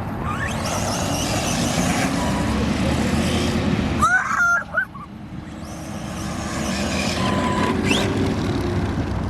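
ARRMA Senton RC truck running at speed, its electric motor whining and rising in pitch as it speeds up. The sound drops away briefly about four and a half seconds in, then builds again. A short high-pitched cry is heard just after four seconds.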